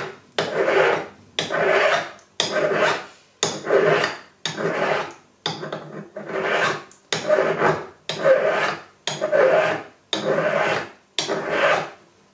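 Hand filing of a cast metal ring with a medium-cut (bastard) jeweller's file against a wooden bench pin: steady strokes about one a second. The file is cleaning up the sawn ends of the ring after a cut made to reduce its size.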